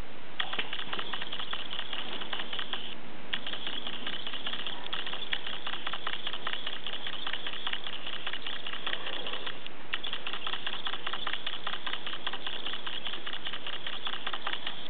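Felt-tip marker scratching and tapping on paper in quick, dense strokes, with two brief pauses where the pen lifts.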